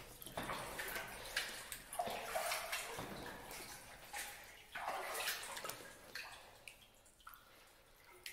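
Kayak paddle strokes in still water: the blades dipping and splashing, with water dripping off the raised blade. The strokes come every second or so and thin out toward the end.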